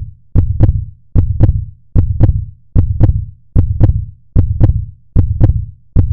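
Heartbeat-style thumping, a loud low double beat repeating evenly about 75 times a minute, with two sharp clicks on each beat.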